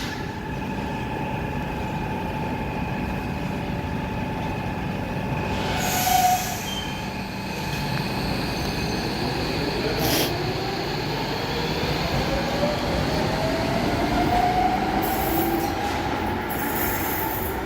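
Docklands Light Railway train running through the station with a steady rumble of wheels on rail and a brief squeal or two. From about halfway through, its electric traction motors whine, rising steadily in pitch as the train accelerates away.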